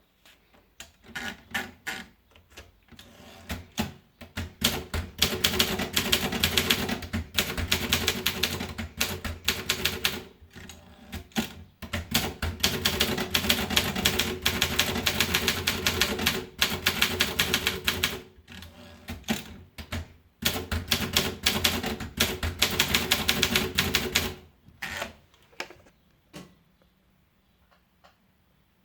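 Optima Elite 3 manual portable typewriter being typed on fast, its keys striking in rapid runs with short pauses between them. Near the end a few single strokes follow before the typing stops.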